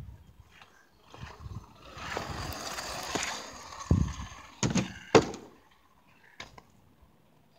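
Kick scooter wheels rolling over rough asphalt close by as a rider passes, then several sharp clacks of the scooter striking the ground as it goes away. The loudest clack comes about five seconds in.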